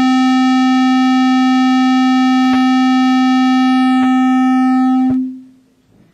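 A loud, steady single-pitched tone with a buzzy edge over the hall's public-address system; it cuts off abruptly about five seconds in.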